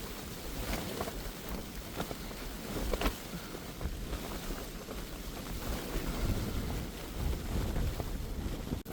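Strong gusting wind buffeting a Hilleberg Jannu tent in a snowstorm, with low rumbling gusts on the microphone and sharp ticks and snaps from the flysheet. The sound cuts off sharply near the end.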